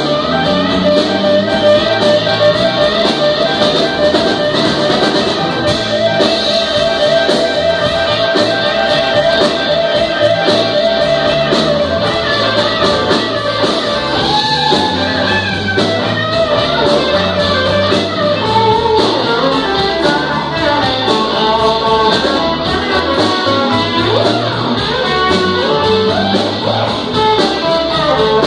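Live instrumental jam on electric guitars and a drum kit, heard through the room, with a lead guitar holding long, wavering notes over a steady beat.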